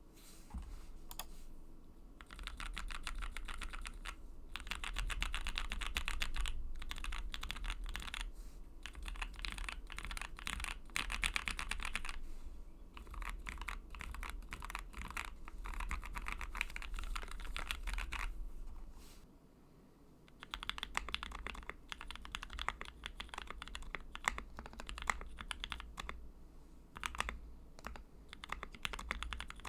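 Typing on a Tofu 65 acrylic custom mechanical keyboard with lubed and filmed Gateron Milky Yellow linear switches on an aluminium plate with plate foam: fast runs of keystrokes in bursts, with a short pause about two-thirds of the way through.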